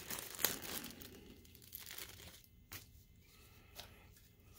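Thin plastic bag crinkling and rustling as a new projector colour wheel is pulled out of it, loudest in the first second, then fading to a few faint clicks of handling.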